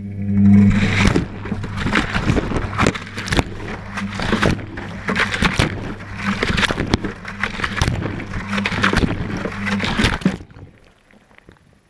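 Whirlpool Indiana 1400 washing machine's motor turning the drum, heard from inside the drum: a steady low motor hum with the tumbling load knocking and clattering irregularly. The motor starts suddenly and stops abruptly after about ten seconds, a pause between drum turns.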